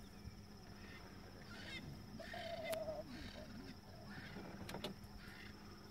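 Faint chirping animal calls with one longer wavering call about two seconds in, over a steady low hum.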